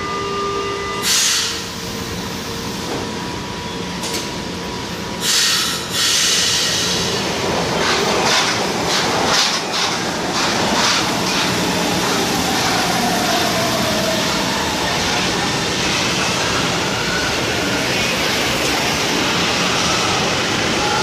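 São Paulo Metro trains: two short bursts of hissing air about one and five seconds in, then a metro train running past with its wheels clacking rhythmically over rail joints. Faint gliding whines can be heard later.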